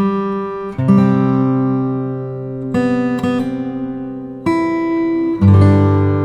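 Acoustic guitar music, with chords strummed and left ringing, a new chord about every second or two.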